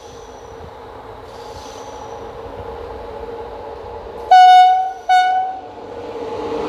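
Romanian class 41 (060-EA) electric locomotive sounding its horn in two short blasts of one steady pitch, about four and five seconds in, the first longer and louder. Under it, the rumble of the approaching locomotive and passenger train grows steadily louder.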